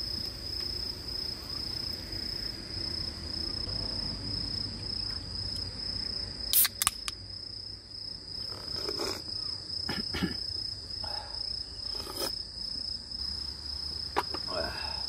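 Crickets trilling steadily at a high pitch, with a few sharp clicks and knocks over it, the loudest a quick pair of clicks about six and a half seconds in. Near the end a sharp click fits a beer can's tab being pulled open.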